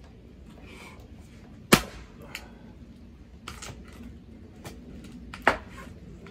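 Hand splitting of hardwood firewood: two sharp cracks of the splitting tool striking the wood, about four seconds apart, with a few lighter knocks of wood in between.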